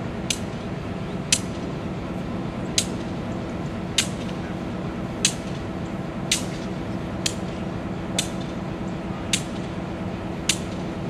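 EMD GP38 diesel-electric locomotive idling with a steady drone from its 16-cylinder two-stroke engine. A sharp, high click sounds about once a second over it.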